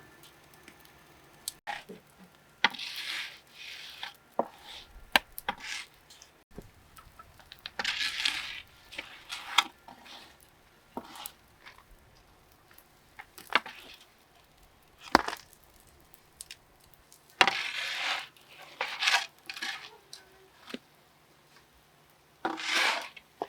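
Kitchenware being handled: irregular sharp knocks and clinks mixed with short scraping sounds.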